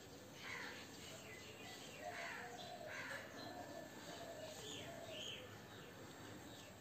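Faint bird chirps: a handful of short calls scattered through, over a quiet background hiss.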